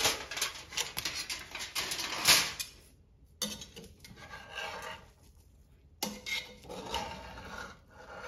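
Aluminium foil crinkling as it is pulled off a pot, loudest about two seconds in. Then a metal ladle scraping and stirring through cooked rice in a metal pot, more softly.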